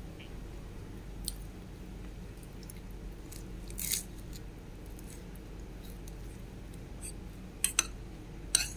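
Metal spoon scraping and clinking against a bowl: a short scrape about four seconds in and a few sharp clinks near the end, over a low steady hum.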